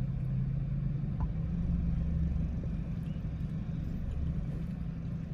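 Steady low rumble and hum of a car running, heard from inside the cabin.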